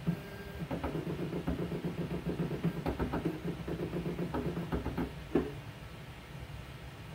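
Automatic fundus camera's motors whirring with a steady hum and a run of small clicks as it moves, aligns and focuses on the eye during its automatic scan. A sharp click about five seconds in marks the photo being taken.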